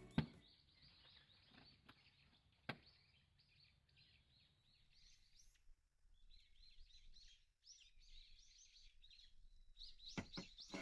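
Faint outdoor ambience of small birds chirping in quick runs of short, high calls, with a couple of sharp clicks near the start.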